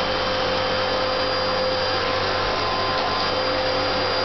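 Vacuum cleaner running steadily, a continuous motor whine over the rush of air.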